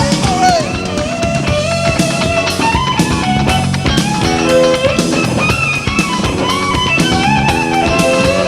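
Rock band playing an instrumental passage, with a melodic lead line over electric guitar, bass and drum kit.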